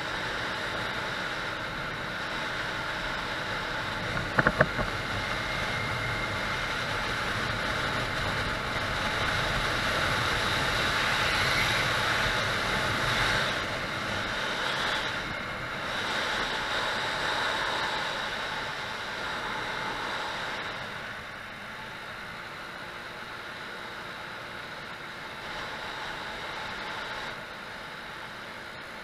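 Scooter being ridden at speed, heard through a helmet-mounted camera: wind rushing over the microphone with the scooter's engine running underneath. A few sharp knocks come close together about four seconds in. The rushing grows louder through the middle and drops about two-thirds of the way through.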